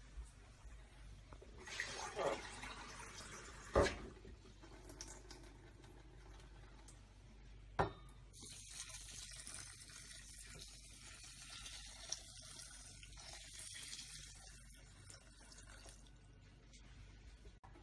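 Water poured from a plastic measuring jug onto coarsely ground coffee in a stainless steel pot: a steady splashing pour that starts about eight seconds in and lasts about eight seconds. Two sharp knocks come before it, about four and eight seconds in.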